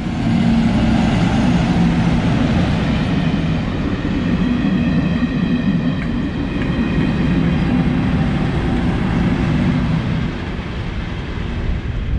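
Diesel freight train, a Class 56 and a Class 50 diesel-electric locomotive with a rake of vans, passing close by. The heavy diesel engine rumble runs with steady wheel-on-rail noise, and the sound eases somewhat after about ten seconds as the train draws away.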